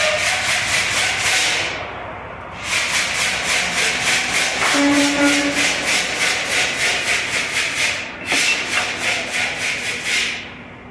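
Rapid back-and-forth rubbing or scrubbing strokes on a truck wheel hub, about five strokes a second, in three spells with short pauses between. A short steady tone sounds about five seconds in.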